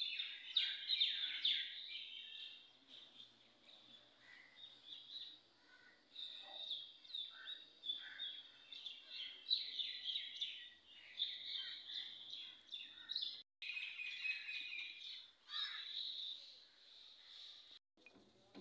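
A chorus of small birds chirping and twittering, many short overlapping calls. The sound drops out briefly twice near the end.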